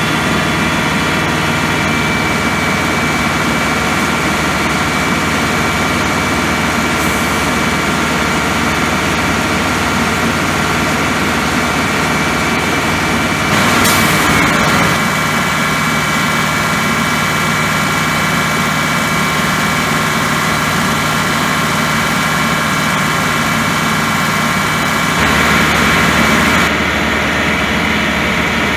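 A crane truck's Caterpillar 3208 V8 diesel running steadily while the crane is worked, with a steady whine over the engine. It swells louder briefly about halfway through and again for a couple of seconds near the end.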